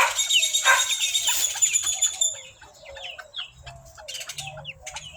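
Young chickens flapping and scrambling while squabbling over food, with short high chirps. After about two seconds the flurry dies down to softer, low, wavering clucks.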